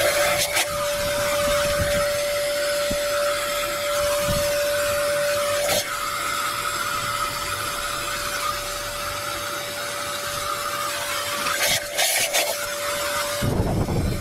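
Shop vacuum running with a steady whine, its hose sucking debris out of the cylinder bores and off the deck of an engine block. Near the end the whine stops and a lower rushing noise takes over.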